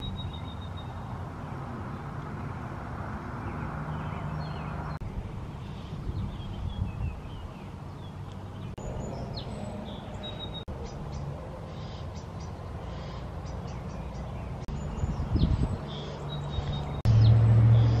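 Songbirds chirping and whistling in short scattered calls over a steady low outdoor rumble. About a second before the end a vehicle engine comes in, clearly louder.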